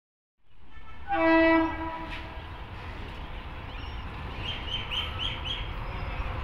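Horn of an Indian Railways WAP7 electric locomotive sounding one short blast about a second in, followed by the steady rumble of the fast train approaching, growing slightly louder near the end.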